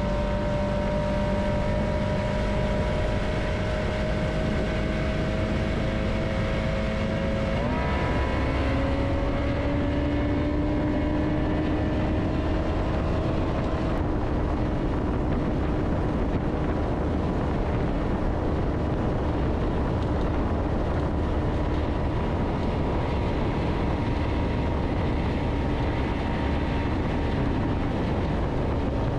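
Outboard motor pushing the boat at speed, with water rushing along the hull. The engine note climbs slowly, steps up in pitch about eight seconds in, then holds steady.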